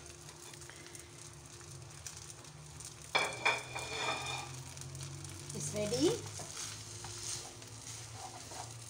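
Rice vermicelli with prawns frying in a wok on a gas stove, a soft steady sizzle over a low hum. About three seconds in there is a sharp metallic clatter that rings briefly. Later a wooden spatula stirs and scrapes the noodles around the pan.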